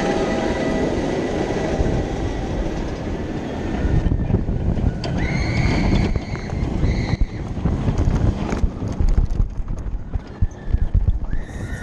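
A suspended looping roller coaster train in motion, heard from a rider's seat: rushing noise and the train rattling and clattering over the track, getting busier about four seconds in as it drops into the inversions. A high-pitched squeal is held for about two seconds partway through, and a shorter one comes near the end.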